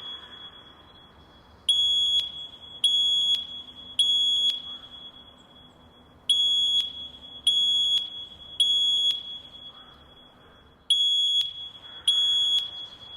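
Fire alarm sounding the temporal-three evacuation signal: three high-pitched beeps about a second apart, a pause, then the same three beeps again, three groups in all, each beep trailing off briefly.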